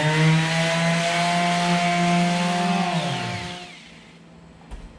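Electric sander fitted with 60-grit sandpaper, scuffing a test panel: its motor spins up at the start, runs at a steady pitch for about three seconds, then winds down and stops.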